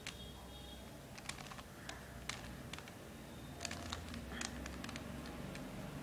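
Stickerless plastic 3x3 Rubik's cube being turned by hand: its layers give a series of sharp plastic clicks and clacks at an irregular pace, coming quickest a little past the middle.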